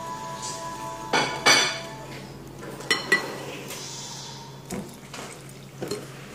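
Metal wire whisk stirring cake batter and knocking against a glass mixing bowl: two loud ringing clinks about a second in, two sharper clinks near the middle, then lighter taps.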